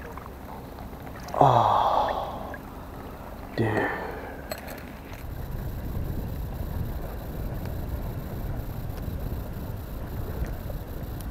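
Two short, loud vocal sounds, like gasps or exclamations, about a second and a half and three and a half seconds in. Then a steady low rumble of wind on the microphone.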